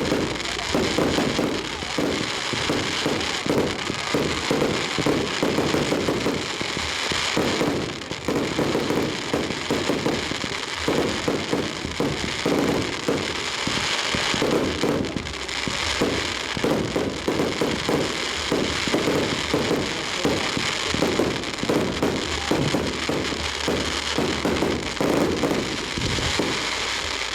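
Fireworks display going off in a dense, unbroken barrage of bangs and crackles, many bursts a second with no pause.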